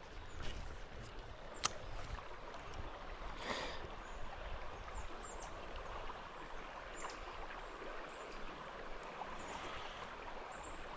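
Steady rush of flowing creek water, with a couple of faint clicks early on in the first few seconds.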